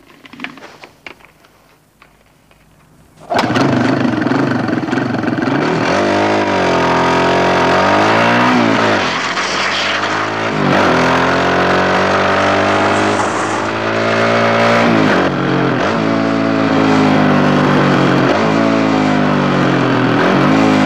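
Dirt bike engine starting suddenly about three seconds in, then revving hard under load as the bike climbs a steep dirt hill. Its pitch rises and drops back again and again with the throttle and gear changes.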